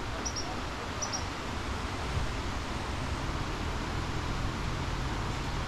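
Steady rushing of river rapids, with short high bird chirps twice in the first second or so and a low steady hum joining about two seconds in.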